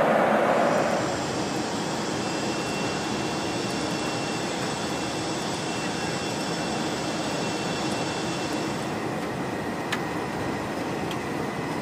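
Steady engine and airflow noise inside a large jet's cockpit on approach and landing, with a high turbine whine that fades out about three-quarters of the way through. A louder rush at the very start drops away about a second in, and a few faint clicks come near the end.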